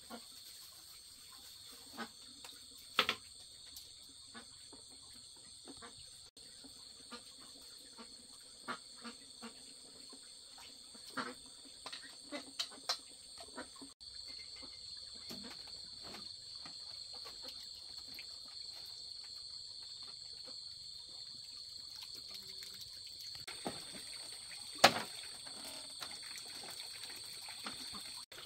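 Steady high-pitched chorus of night insects, with scattered sharp clicks and small knocks through the first half and one loud knock about 25 seconds in. A soft hiss rises under the insects about halfway through.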